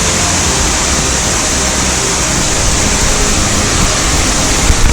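Waterfall heard close up: a loud, steady rush of falling water.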